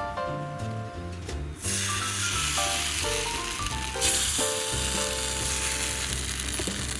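Takoyaki batter sizzling as it is poured into the hot oiled cells of a takoyaki pan. The sizzle starts about one and a half seconds in and grows louder about four seconds in, under background music.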